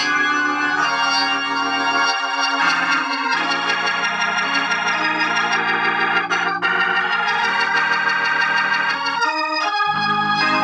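Hammond organ playing sustained chords over a bass line, the chords changing every second or two, heard through a tube amplifier under test after new capacitors were fitted.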